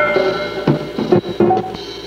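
Jazz film-score music: held notes with several drum strikes a little past halfway.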